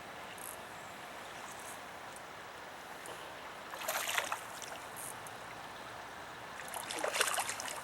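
Creek water running steadily, with two bursts of splashing at the surface, one about four seconds in and another near the end.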